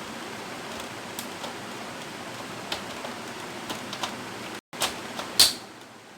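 Plastic side cover of an all-in-one PC being handled and pressed shut: light clicks over a steady hiss, then two sharper snaps near the end, the second the loudest, as the cover's clips catch.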